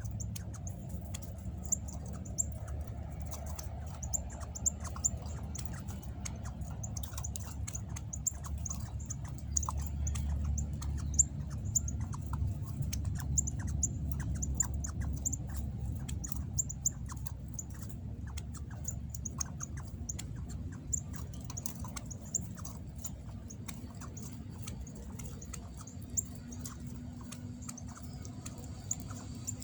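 Northern cardinals giving sharp, high chip calls over and over, several a second, with scattered clicks.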